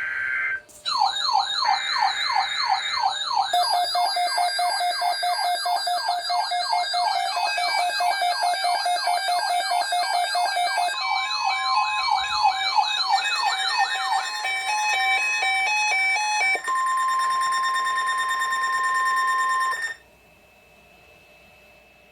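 Emergency alert tones: short buzzing data bursts, then several electronic alarms sounding together (rapid rising siren sweeps about three a second, a high fast warble and stepped beeping tones), ending in a single steady alarm tone for about three seconds that cuts off sharply about 20 seconds in.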